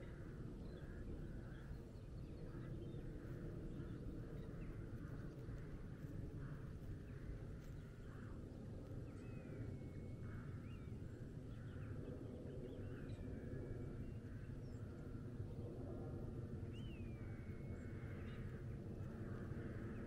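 Countryside ambience at dawn: many short distant bird calls, with a few whistled calls that slide in pitch, over a steady low rumble.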